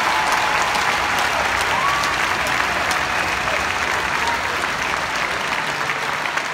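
Large arena crowd applauding, with a few whistles, easing off slightly near the end.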